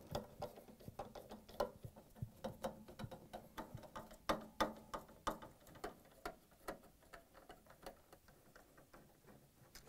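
A hand nut driver backing screws out of a refrigerator's rear access panel: a run of faint, irregular small clicks and ticks, thinning out near the end.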